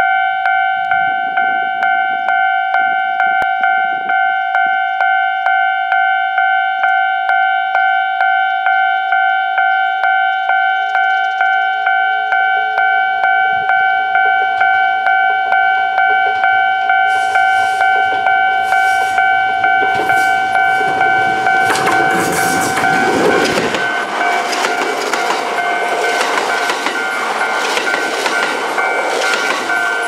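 Japanese level-crossing warning bell ringing with a fast, even, repeating ding, while a Kintetsu 12400-series limited express electric train approaches. The train passes close by in the last third with loud rumbling and clattering of wheels on rails, the crossing bell still sounding over it.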